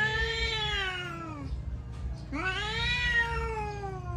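Domestic cat yowling in a standoff with a strange cat: long, drawn-out warning yowls. One yowl trails off in the first second and a half, and a second begins a little after two seconds in, rising and then slowly sliding down in pitch.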